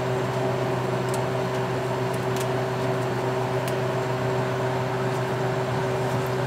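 Steady low electrical hum of an appliance running, with a few faint light clicks, likely from leaves and stems being handled.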